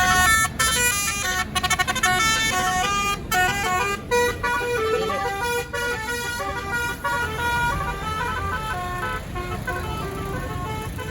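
Tour bus's 'basuri' musical telolet horn playing a quick tune of stepped notes over vehicle noise, growing fainter in the last few seconds.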